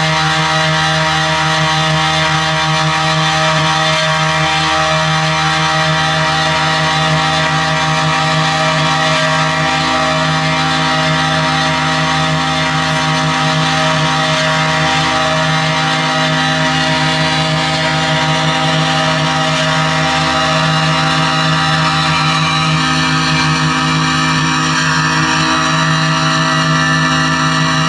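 Live electronic drone music: a loud, dense wash of sustained held tones. New notes enter about six seconds in, and the upper layer shifts again near the end.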